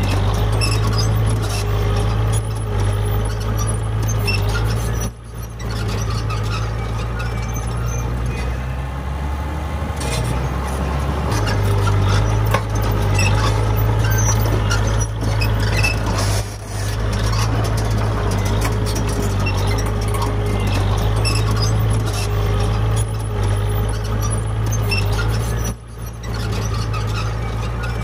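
Heavy diesel earthmoving machinery (bulldozer and dump truck) running steadily under load, with a deep engine drone and a higher, wavering whine above it. The sound dips briefly three times, about 5, 16 and 26 seconds in.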